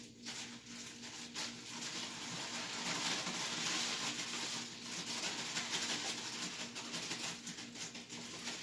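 Plastic bag of ice and salt being shaken and squeezed: a dense rustling crackle with many small clicks of ice, loudest in the middle, over a faint steady hum.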